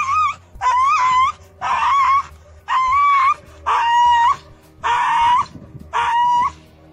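A stray dog whining and crying in distress, a loud pitched cry repeated about once a second, each one lasting over half a second: the sound of a dog dying after a lethal injection.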